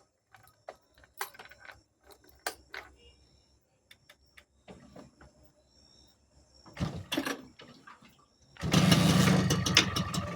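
Honda Invicta motorcycle's single-cylinder engine being started: scattered clicks and knocks, a short burst of cranking, then the engine catches near the end and runs steadily at idle.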